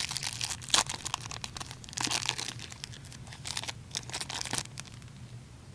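A hockey card pack wrapper being torn open and crinkled, with the cards handled, in several bursts of crackling and ripping.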